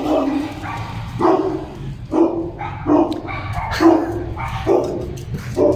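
Large dogs barking repeatedly, about seven barks at roughly one a second.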